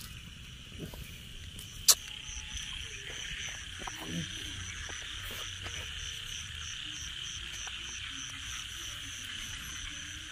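Night-time chorus of calling insects and frogs, with one high insect call pulsing evenly about three times a second. A single sharp crack sounds about two seconds in.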